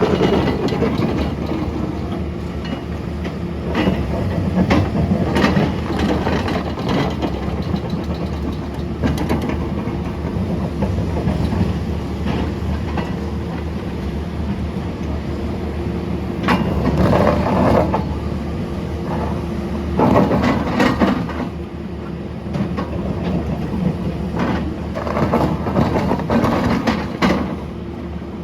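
Large hydraulic excavator working with a ripper: the diesel engine runs steadily under load while metal knocks and clanks come thick and irregular, swelling louder several times.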